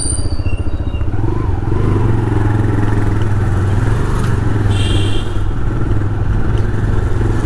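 Motorcycle engine running at low speed, heard from the rider's seat. About five seconds in there is a brief high-pitched sound.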